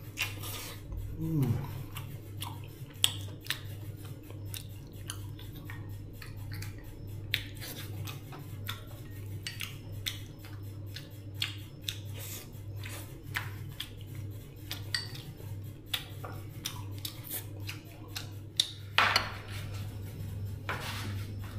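Irregular light clicks and clinks of kitchen utensils and dishes being handled, over a steady low hum, with a louder clatter near the end.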